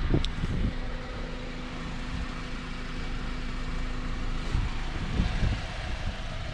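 Car engine idling steadily. A short sharp sound comes right at the start, and a few low thumps come about five seconds in.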